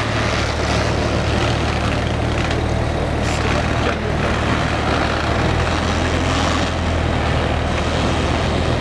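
Maserati Levante Mansory's engine running at a steady idle, a low even drone with no revving.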